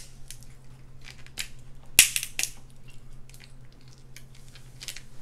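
King crab shell being cracked and snapped open: a handful of sharp, irregular cracks and crunches, the loudest about two seconds in.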